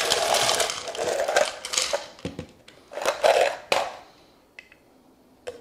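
Ice cubes poured from a plastic container, clattering into the plastic jar of a BlendJet portable blender: a dense run of clatter through the first two seconds, another burst about three seconds in, then only a few faint clicks.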